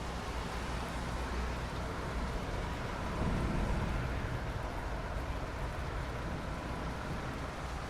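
Steady rainfall: an even hiss of falling rain over a low rumble, swelling briefly about three seconds in.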